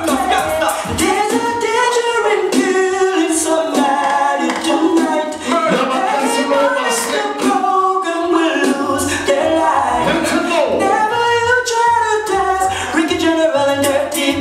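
Reggae record with a sung vocal, played through a sound system from turntables. The bass is dropped out at first and comes back in about nine seconds in, pulsing with the beat.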